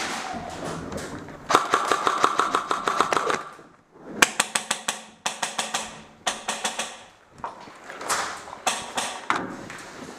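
Electric airsoft rifle firing several full-auto bursts, each a rapid, even run of sharp clicks with a motor whine under the first.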